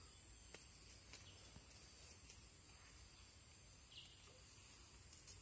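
Crickets or similar night insects trilling faintly in a steady high-pitched drone, with a few faint clicks.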